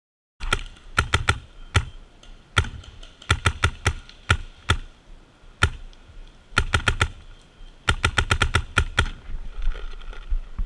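Paintball markers firing, cracking shots in quick strings of three to eight, the longest rapid string about eight seconds in. The shooting starts abruptly half a second in.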